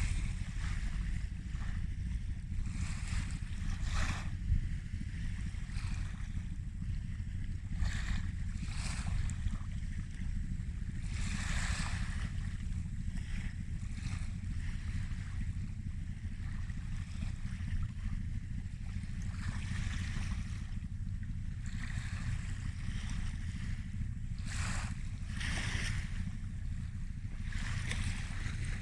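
Small waves washing in on the shore, a hissing wash swelling and fading every few seconds, over a steady low rumble of wind on the microphone.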